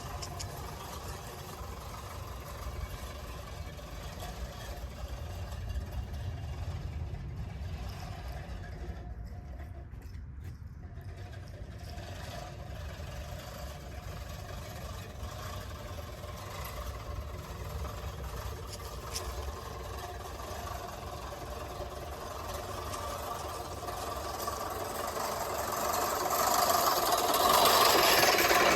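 Manual push reel lawn mower's spinning blades whirring as they cut grass, over a steady low rumble, growing louder near the end.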